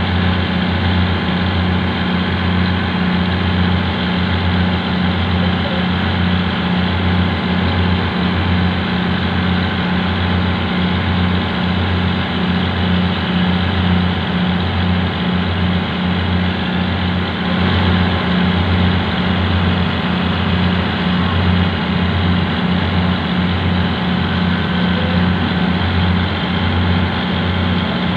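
A boat's engine running steadily, a low, even drone with a regular throb.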